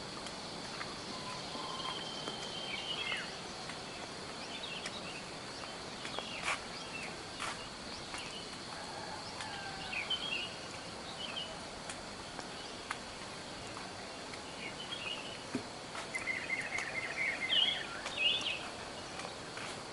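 Birds chirping and calling now and then over a steady high insect drone. A run of rapid, louder chirps comes near the end.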